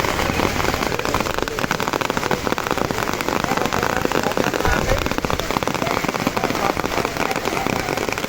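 Heavy rain pouring down: a dense, steady hiss packed with countless small drop impacts.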